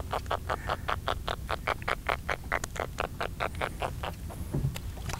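Fishing reel being cranked fast while bringing a hooked fish to the boat, giving an even run of rapid clicks about six or seven a second that stops about four seconds in.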